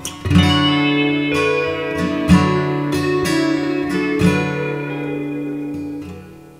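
Acoustic guitar strumming chords, with sharp strums about once a second, then the last chord rings out and fades.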